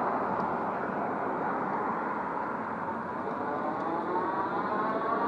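Electric bike's motor whining, rising in pitch from about halfway as the bike picks up speed, over a steady rush of wind and road noise.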